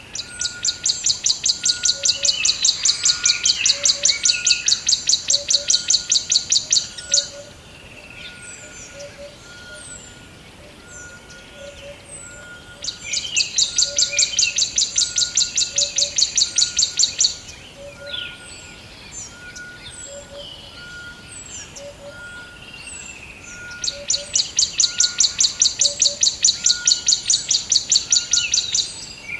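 Forest birds singing. One bird gives a long, rapid, high trill three times, each lasting several seconds, with short high chirps from other birds between. Under them a short steady note repeats about once a second, with a fainter lower double note.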